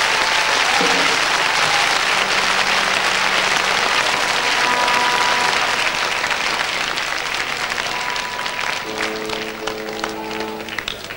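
Concert audience applauding and cheering at the close of a live rock song, with a few held instrument notes ringing over the clapping. About nine seconds in a sustained chord sounds briefly, and the whole sound fades away near the end.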